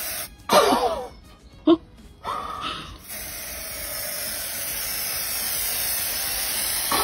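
Aerosol spray-paint can spraying, a steady hiss that runs on from about three seconds in. Before that come a few brief pitched sounds and a short sharp one.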